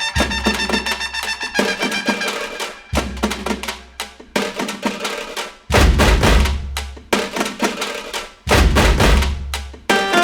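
Background music with a steady drum beat and a heavy bass.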